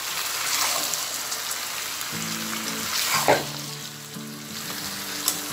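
Spiced beef with onions and oil sizzling on high heat in a non-stick pan while it is stirred and turned up from the bottom with a spatula, with a sharper scrape about three seconds in. The stirring keeps the spice paste from sticking to the base of the pan.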